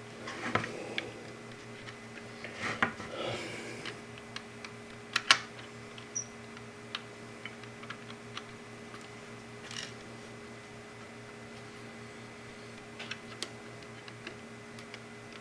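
Scattered light clicks and scrapes of an Arduino Nano clone's header pins being pushed and seated into a plastic solderless breadboard by hand. The sharpest click comes about five seconds in.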